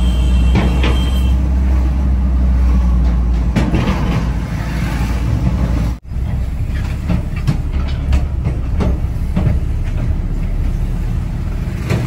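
Road noise from a vehicle driving in traffic: a steady low rumble with other vehicles passing. It drops out abruptly for a moment about halfway through, then carries on.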